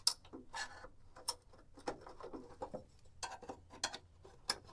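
Flathead screwdriver prying plastic cable clips off a metal exhaust bracket: light clicks and taps at irregular intervals.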